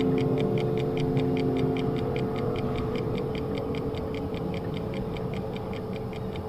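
Steady mechanical ticking from a kinetic sound-art installation, about five clicks a second, with sustained low droning tones that fade out in the first few seconds.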